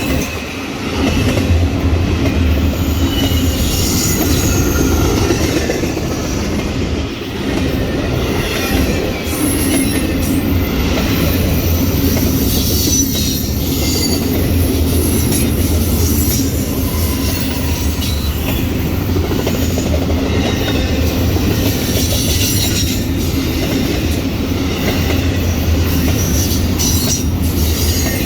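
A train running past on the rails: steady wheel-and-rail rumble with high, wavering steel wheel squeal and some clacking over rail joints.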